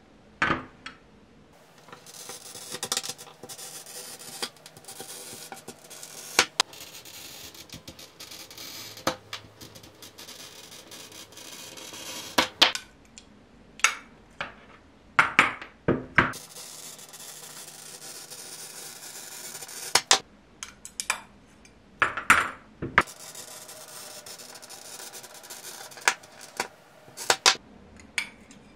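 Green sheet glass being snapped into strips along score lines with glass-breaking pliers: a dozen or so sharp cracks and clinks, with scratchy scraping of glass and tool in between.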